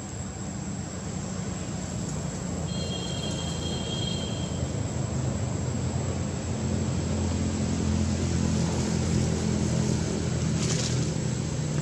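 A motor engine droning low and steady, growing gradually louder.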